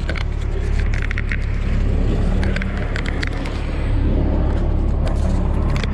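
Sherp's diesel engine running steadily, heard from inside the cab as a continuous low drone. Over it come irregular clusters of sharp crackling clicks.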